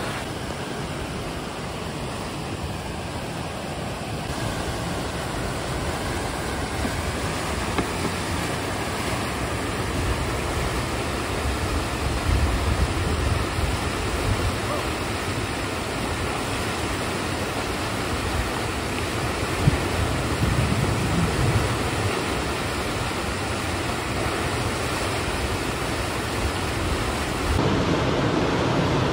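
Steady rush of whitewater from a man-made river play wave running at high spring flow. Low gusts of wind buffet the microphone in the middle stretch.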